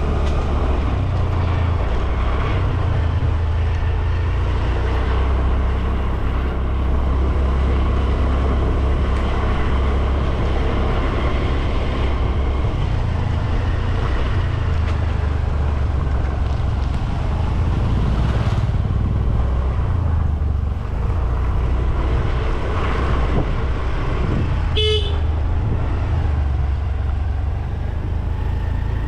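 A moped riding along with a steady low rumble from its engine and the passing air. A single short horn beep sounds about 25 seconds in.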